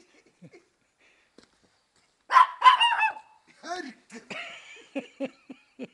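A Maltese dog barking in a quick burst of high, yappy barks about two seconds in, followed by a few shorter, lower barks near the end.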